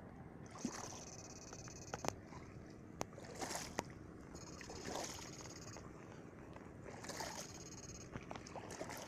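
Footsteps wading and sloshing through shallow water and grass, with scattered faint clicks. A high buzz comes and goes three times, each lasting about a second.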